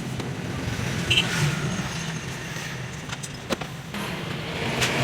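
A car engine running steadily, with a few short clicks over it.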